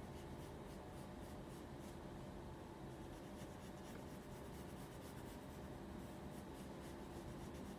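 Pencil scratching faintly across paper in short strokes, drawing lines.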